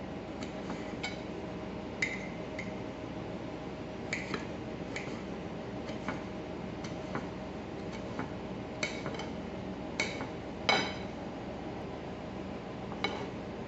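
Kitchen knife dicing tomato on a plate: irregular sharp clicks and clinks as the blade strikes the plate, about fifteen of them, over a steady low hum.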